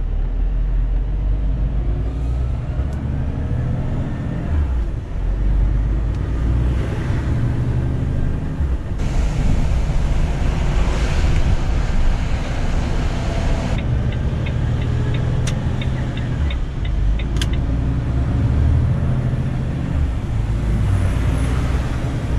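Heavy truck driving, heard from inside the cab: a steady low diesel engine note under tyre and road rush, which swells for a few seconds midway. A short run of quick light ticks comes a little past the middle.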